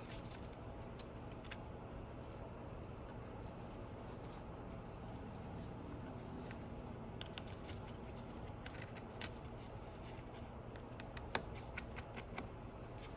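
Small, scattered clicks and light scrapes of small hand tools working on an opened iPhone 11, in a few short clusters over a steady low hum.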